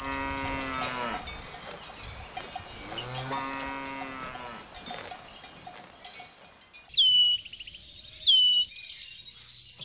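Cattle mooing twice, each moo about a second long, with cowbells clanking lightly. About seven seconds in, a bird gives two loud calls about a second apart, each a whistle that drops sharply in pitch and then holds.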